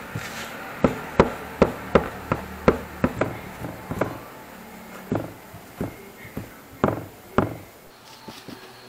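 A series of sharp knocks of a painted metal knife blade against a tile floor as it rocks under hand wiping: about ten quick knocks in the first four seconds, then five slower ones, stopping about a second before the end.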